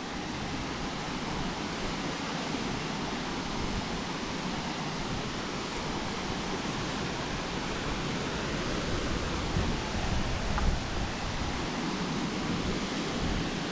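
Steady rush of a waterfall's falling water, an even noise with an uneven low rumble underneath.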